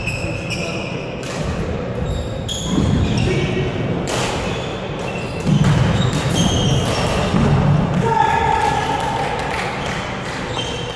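Echoing gym-hall din during badminton play: sneakers squeaking on the wooden court floor in short high chirps, with indistinct voices and thuds.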